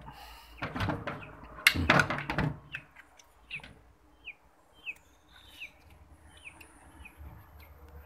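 Knocking and scraping of the washing machine's top cover being lifted off, with one sharp knock. After that, a small bird chirping: a run of short falling chirps at roughly two a second.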